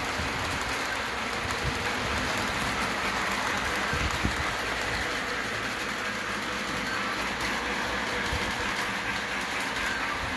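Electric model train running on the layout's track: a steady running noise of the cars' wheels on the rails and the locomotive's motor, at an even level throughout.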